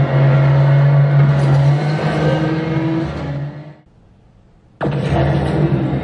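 Racing-game car engine and drift sounds played through Edifier R1280DB bookshelf speakers: a steady engine drone with wavering pitch that fades out about three and a half seconds in. After a gap of about a second, the game's engine sound cuts back in abruptly, now through Edifier R1280DBS speakers.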